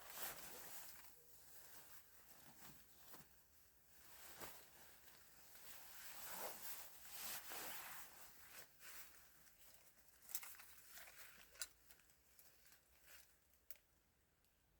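Faint rustling and crinkling handling noises, broken by a few short sharp clicks or taps, dying away near the end.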